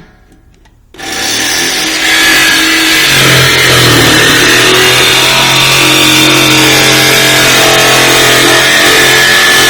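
TackLife corded jigsaw starting up about a second in, then running steadily as its blade cuts through the steel lid of a 55-gallon drum.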